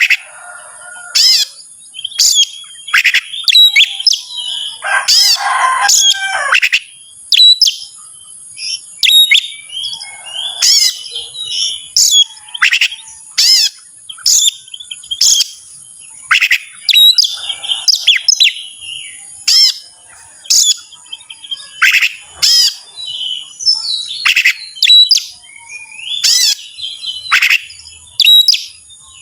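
Oriental magpie-robin singing hard in quick, loud, varied phrases of whistles and chattering notes, with short pauses between bursts: the full, material-rich song of a male challenging a rival. A faint steady high tone runs beneath.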